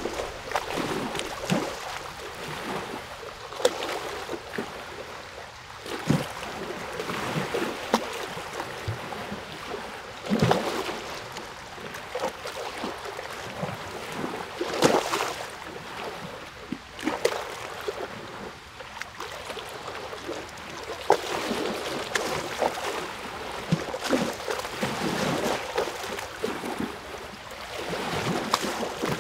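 Moving water splashing and gurgling, with irregular small splashes and plops over a steady watery rush.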